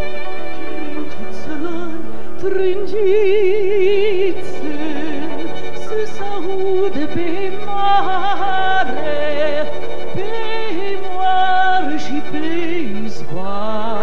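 A woman singing a slow song with a wide vibrato, backed by a Romanian folk ensemble with violin, over held accompanying notes and a low sustained bass.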